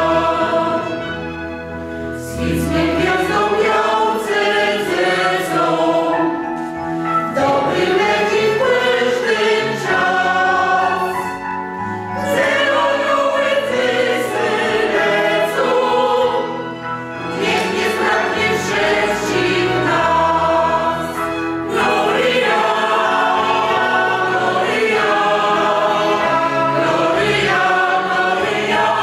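Mixed choir of women's and men's voices singing together in parts, with held notes and short easings between phrases.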